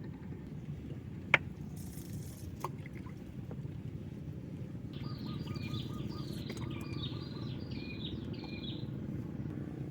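A bird calls a short phrase about six times in a row, starting about halfway through, over a steady low rumble. There is one sharp click about a second in.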